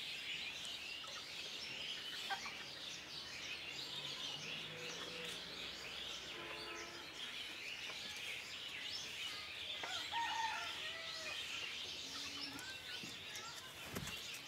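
Desi chickens clucking with a few short calls, over continuous chirping of small birds.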